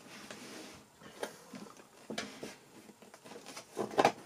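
A cardboard box being handled on a desk: a faint rustle, then a few soft taps and scrapes of cardboard, with a louder knock near the end.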